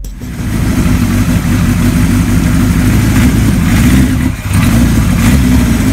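A 1975 Kawasaki Z1 900's air-cooled inline four-cylinder engine running steadily at idle, with a brief dip in level about four seconds in.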